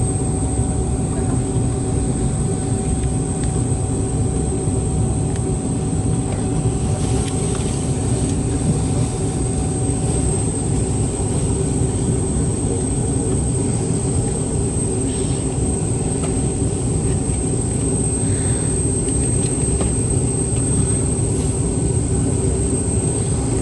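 Boeing 717's tail-mounted Rolls-Royce BR715 turbofan running steadily at idle, heard from inside the cabin right beside the nacelle: a low drone with a thin, steady high whine over it.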